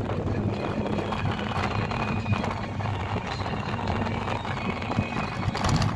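Engine and road noise heard from inside a moving vehicle: a steady low drone over broad rumble.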